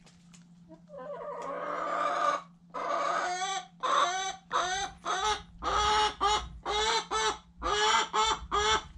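A chicken cackling loudly: a rising, raspy call about a second in, then a run of short calls, about two a second, each arching up and down in pitch.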